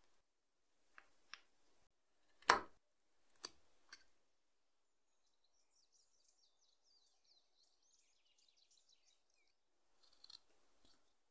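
Short-bladed whittling knife clicking and paring into a small dry-wood carving, a few separate cuts with one sharp knock a little after two seconds in. Faint bird chirping follows for a few seconds, then a couple of quiet knife cuts near the end.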